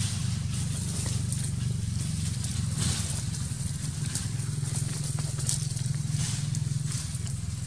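A steady low drone like a motor running, with scattered light crackles of dry leaves being rustled.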